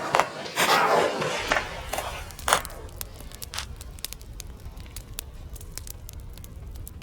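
Firecrackers going off: a quick run of loud bangs in the first two and a half seconds, then scattered sharp cracks and crackling that thin out over a low rumble.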